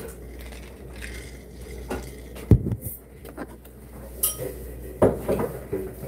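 An insulated drink tumbler is set down on a table with a sharp thud about two and a half seconds in, followed by a few lighter knocks and clinks of tableware.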